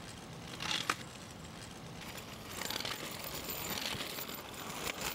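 Steady outdoor background hiss with a few soft rustles, one about a second in and more around three to four seconds in.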